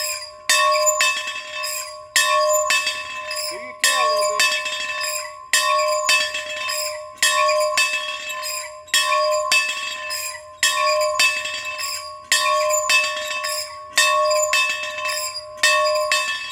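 A bell rung steadily in an even rhythm: a loud strike and a softer one about half a second later, repeating about every second and a half, its tone ringing on between strikes.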